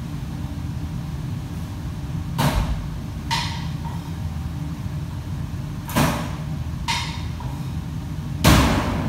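Kitchen work noise: a steady low hum with a few sharp clatters of cookware, two of them ringing briefly. A louder, longer clatter comes near the end.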